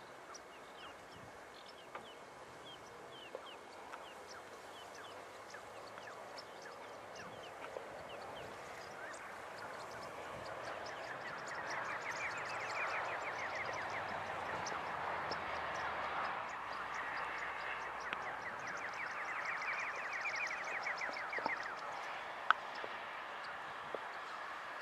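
A large flock of marsh birds calling together: a dense chatter of many overlapping calls that grows louder towards the middle, with two stretches of rapid trilling calls. A single sharp click near the end.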